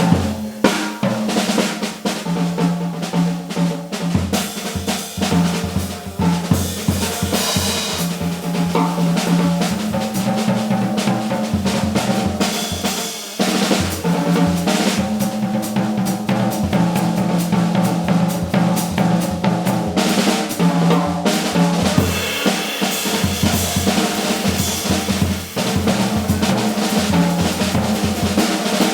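Live jazz combo playing, with the drum kit loud and busy (snare, bass drum and hi-hat) over sustained bass notes and other pitched instruments.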